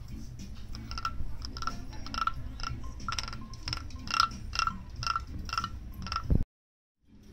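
Carved wooden frog guiro scraped along its ridged back with a wooden stick, giving a run of short croaks about two a second. It cuts off suddenly near the end.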